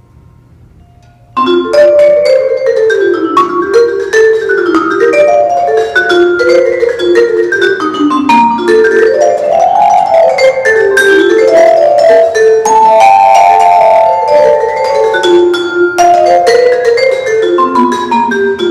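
Musser vibraphone played solo with mallets, starting about a second and a half in: quick runs of struck notes sweeping up and down in pitch, with some notes left ringing.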